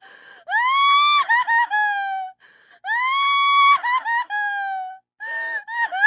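A woman crying hard: two long high wails that rise, break into short sobbing catches and trail off in a falling cry, then a run of short broken sobs near the end.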